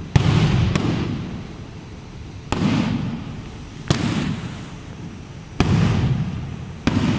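Aerial firework shells bursting overhead: about six sharp bangs at uneven gaps of one to two seconds, each trailing off in a low rolling rumble.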